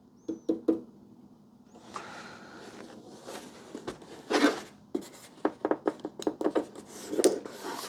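Handling noise from a plastic-cased electronics device: rubbing and scraping with many scattered small clicks and knocks.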